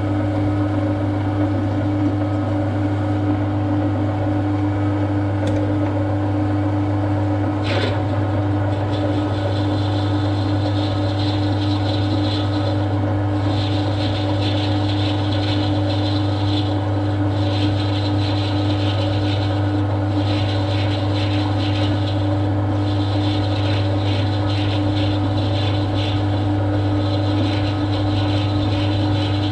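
A workshop machine running steadily with a constant low hum. From about ten seconds in, a gritty, higher-pitched noise comes and goes on top of it, as if the tool is working metal. There is one sharp click about eight seconds in.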